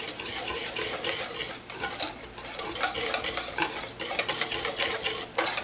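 Wire balloon whisk beating milk into sweet potato pie filling in a stainless steel bowl, the wires scraping and clinking against the bowl in rapid continuous strokes, with one louder clatter near the end.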